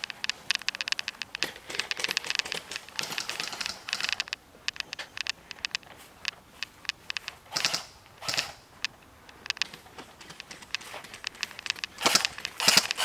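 Airsoft guns firing bursts of rapid sharp clicks. The shots are thick for the first few seconds, scattered through the middle, and come in loud quick bursts near the end.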